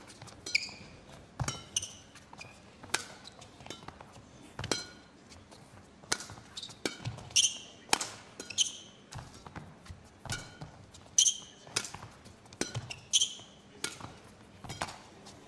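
Badminton rally: sharp racket strikes on the shuttlecock about once a second, traded back and forth, with short high squeaks of players' shoes on the court mat between shots.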